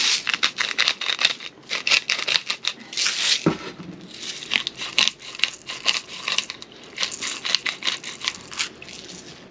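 Hand-twisted pepper grinder grinding peppercorns over food: rapid gritty clicking crunches in repeated bursts, one per twist, with short pauses between them.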